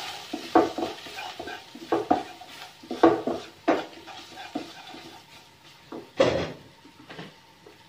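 Wooden spatula scraping and knocking around a nonstick wok as garlic and ground spices are stir-fried in hot oil, with a light sizzle underneath. The strokes are irregular, with one louder scrape a little after six seconds in.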